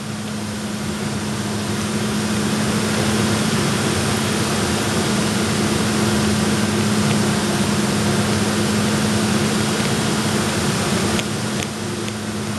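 HHO (hydrogen-oxygen) torch flame hissing steadily as it is held on granite to melt it. Under it is a steady low hum. The hiss eases slightly near the end, and a few sharp ticks follow.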